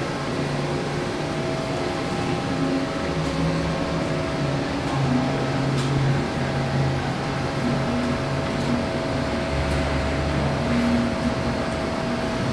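Steady mechanical hum with several held tones and a faint hiss, from machinery running in a workshop.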